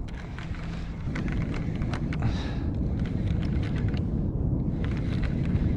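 Wind buffeting a small action-camera microphone, a steady low rumble, with light irregular clicks over it.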